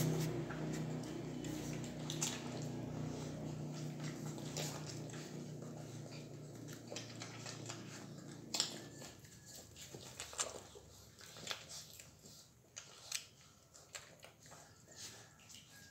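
Puppies suckling from their mother dog: irregular wet sucking and smacking clicks, sharper and more spaced out after about eight seconds. A low steady hum fades out over the first half.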